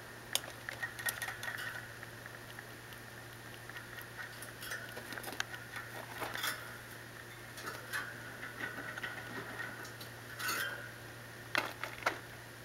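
Baby rabbit drinking from the metal spout of a cage water bottle: small, irregular metallic clicks and licking as its mouth works the steel sipper tube, mixed with soft rustling of the kits shifting in the bedding. A faint steady hum runs underneath.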